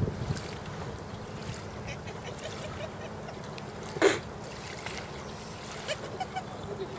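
Quiet water around a single rowing shell, with light splashes and knocks as the sculls are moved. One short, sharp knock about four seconds in.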